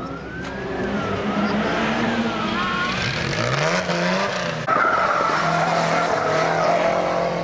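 Lancia Stratos rally car spinning on tarmac, its tyres squealing in a wavering pitch while the engine revs up and down. About two-thirds of the way in, after a cut, another rally car's engine runs hard with a steadier tyre squeal.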